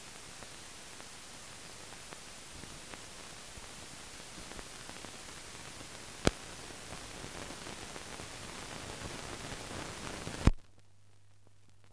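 Steady hiss of an archival newsreel film transfer with no soundtrack, broken by a sharp click about six seconds in and a louder click near the end. After the second click the hiss cuts off, leaving a faint low hum.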